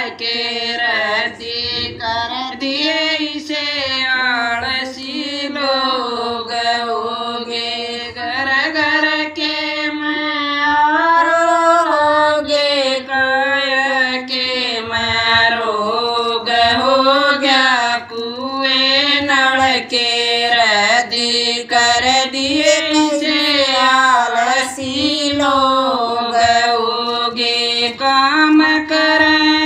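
A woman singing a Haryanvi folk song solo, one continuous voice in long, gliding melodic lines.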